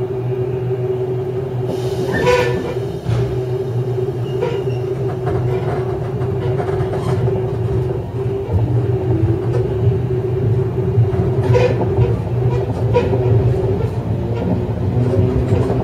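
JR 103-series electric train running, heard from inside a Kuha 103 cab car coupled next to the motor car: a steady drone and whine from the MT55 traction motors and running gear, with occasional clacks of wheels over rail joints.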